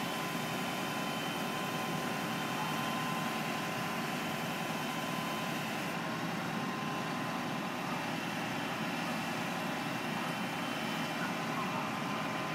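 Knuckle boom truck's engine running steadily while it powers the hydraulic boom, whose grapple lifts a large tree stump.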